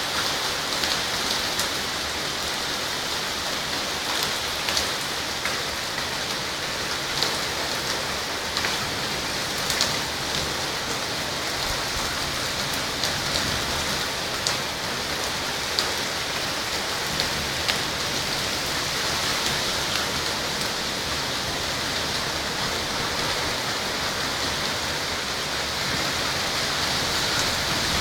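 Heavy rain pouring steadily, with scattered sharper taps of drops striking a nearby surface.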